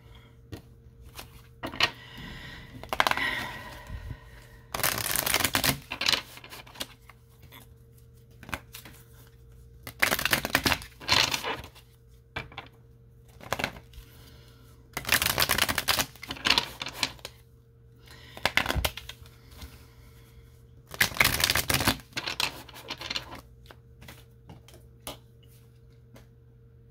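A deck of tarot cards being shuffled by hand, a rapid papery clatter of cards that comes in spells of a second or so, several times over.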